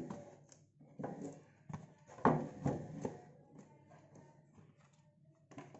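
Cardboard lid of a smartphone retail box sliding off its base, rubbing and scraping in several short bursts, loudest a little over two seconds in.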